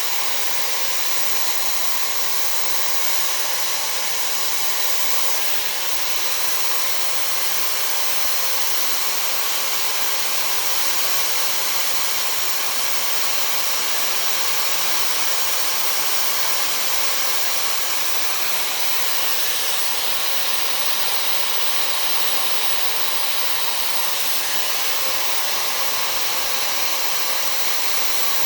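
Dyson hair dryer with a diffuser attachment running steadily: an even, unbroken rush of air, mostly high-pitched hiss.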